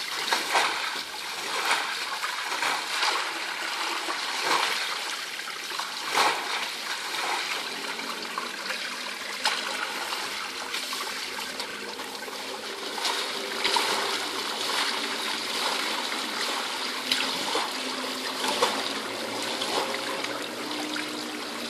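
Shallow water being swept across the floor of an emptied pool with a push broom: repeated splashes and swishes over a steady trickle of water running off the edge.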